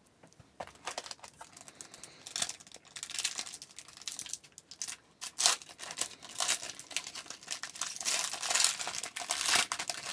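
Trading card pack wrapper being torn open and crinkled by hand, an irregular crackling with a sharper, louder crackle about five and a half seconds in.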